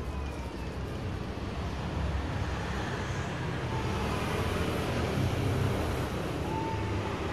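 Steady low background rumble, with two faint brief whistles, one near the middle and one near the end.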